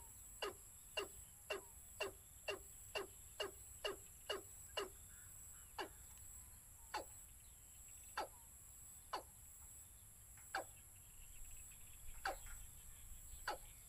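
A caged decoy bird calling over and over: short, sharp notes that each drop steeply in pitch, about two a second at first, then slowing to one every second or so.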